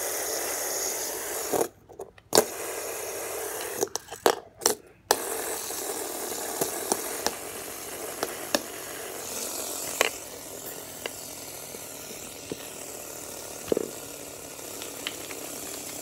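A plastic Doodle Top pen spinning top whirring on paper, its pen tip scratching, with scattered light clicks from the toys being handled. The sound drops out briefly twice in the first few seconds.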